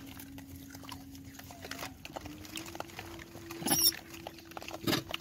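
A troop of rhesus macaques foraging on stony ground: scattered small clicks of stones shifting under hands and feet, over a steady low hum. Two short, loud, harsh grunts come about three and a half and five seconds in.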